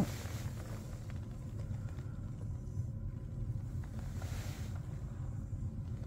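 Steady low background rumble with no distinct events, and a faint brief hiss about four seconds in.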